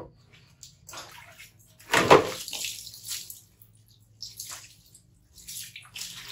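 Water poured from a plastic bowl splashing over a wet baby monkey and onto a plastic stool and tiled floor. It comes in several separate splashes, the loudest about two seconds in.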